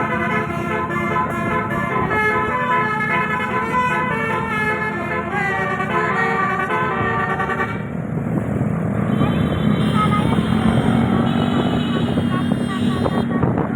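A multi-trumpet telolet air horn on a bus plays a melody of several notes at once, changing notes rapidly, and stops suddenly about eight seconds in. After that, an engine runs with a low hum, along with voices.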